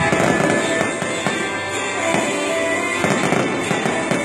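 A series of firework bangs and crackles over loud music.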